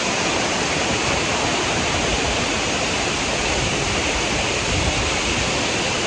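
Curtain waterfall, with many thin streams pouring down a cliff face, making a steady rushing hiss of falling water.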